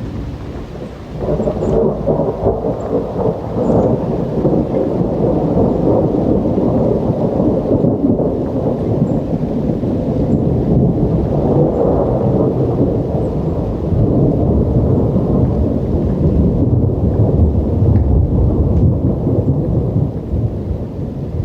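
Thunderstorm: a long rolling rumble of thunder that swells about a second in and keeps going, growing deeper toward the end, over steady rain.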